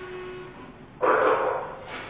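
A quiet moment in a live experimental ensemble improvisation: a faint held tone fades out, then about a second in a sudden breathy, noisy burst swells and dies away within half a second.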